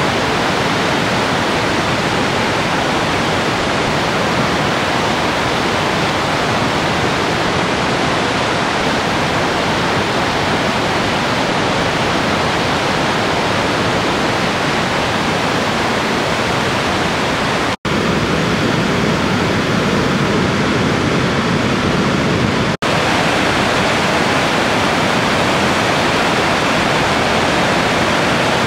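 Merced River rapids, a loud, steady rush of fast white water. The sound drops out for an instant twice, past the middle.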